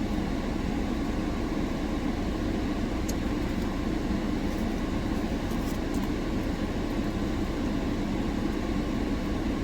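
Car air-conditioning blower running high inside the car's cabin, a steady even rush. A couple of faint ticks about three and six seconds in.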